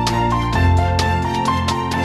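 Instrumental background music with sustained notes and a steady beat.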